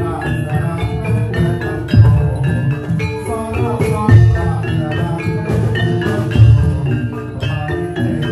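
Javanese gamelan music for a jaran kepang dance: bronze metallophones play quick ringing melody notes over a deep stroke that comes about every two seconds.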